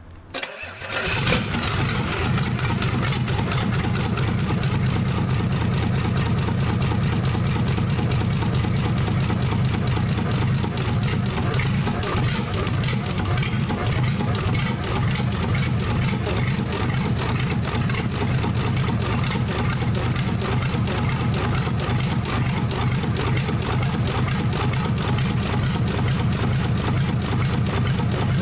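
Isuzu 6BD1 six-cylinder diesel engine firing up about a second in, then running at a steady idle.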